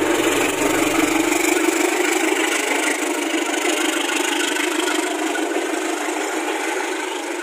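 KAI CC 203 diesel-electric locomotive running as it pulls a passenger train past, with the coaches rolling along the rails. The sound is a steady, loud engine-and-train noise that eases off a little in the second half as the locomotive moves away.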